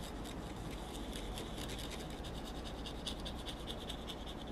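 Cotton swab wet with isopropyl alcohol rubbing over the contacts on a pocket computer's circuit board: a faint run of many quick, short strokes.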